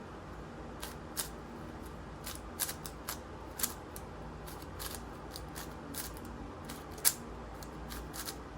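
MGC 5x5 speed cube being turned by hand through a parity algorithm: irregular quick clicks and clacks of the plastic layers, with one sharper clack about seven seconds in.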